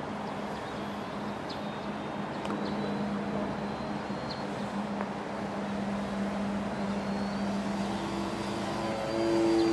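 Yak-55 radio-controlled aerobatic model plane's motor and propeller droning steadily in flight, then growing louder and higher in pitch near the end as the plane comes down for a low pass.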